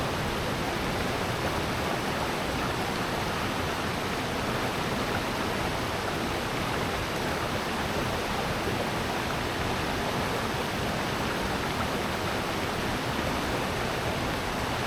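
Steady rush of flowing water in a valley stream, constant with no breaks.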